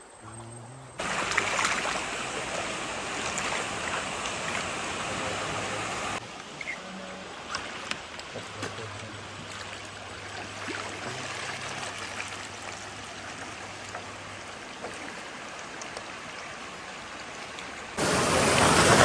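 River water rushing around a bamboo raft, a steady noisy rush that changes level abruptly a couple of times. It is loudest near the end, where the raft runs through rapids.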